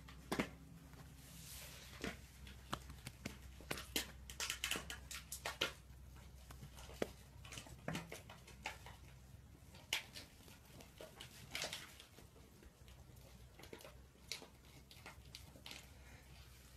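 Puppies' paws scampering on a concrete floor: scattered light, irregular clicks and scuffs over a low steady hum.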